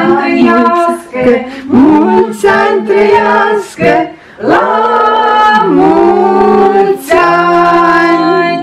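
Several voices, women and children together, singing a birthday song in long held notes, phrase after phrase with short breaths between.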